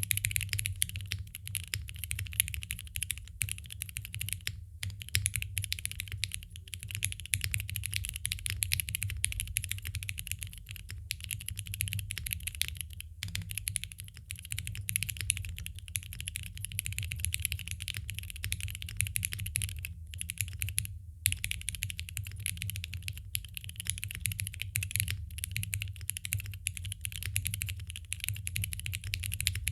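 Continuous fast typing on a Neo65cu custom mechanical keyboard with stock Gateron Curry switches, a polypropylene plate, and plate and case foam. The keystrokes run as a dense stream, broken by a few brief pauses.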